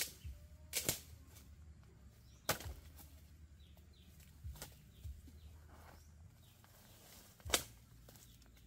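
Sharp, irregular knocks or clacks, about five of them a second or two apart, the loudest near the end.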